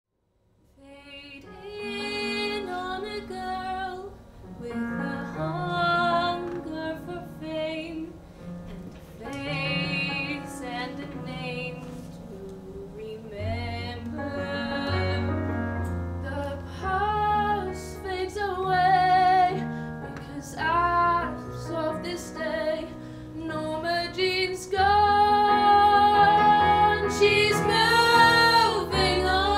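Female voices singing a musical-theatre song over instrumental accompaniment, swelling louder and fuller in the last few seconds.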